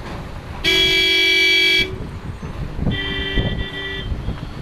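Two horn blasts from vehicles: a loud one lasting about a second, then a shorter, quieter one at a different pitch, over the low rumble of passing traffic.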